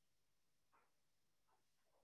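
Near silence: dead air on a live webinar feed whose host's audio is not coming through, with a few faint, brief blips.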